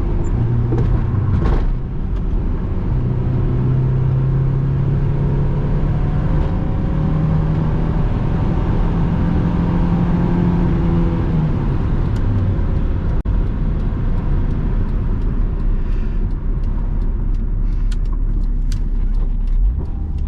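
Honda S2000's JDM F20C four-cylinder engine heard from inside the cabin with the soft top up, pulling in second gear with its note rising for several seconds. About ten seconds in it eases off and falls to a lower, steady drone over road and tyre rumble.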